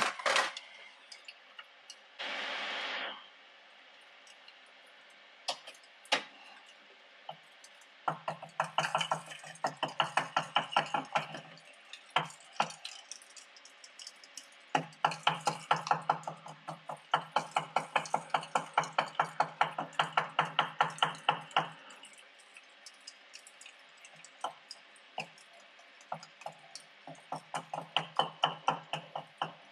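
Hot steel part quenched in a tin of oil: a short hiss as it goes in, then the part swirled in the oil, knocking against the tin's side in long runs of quick light clinks, several a second.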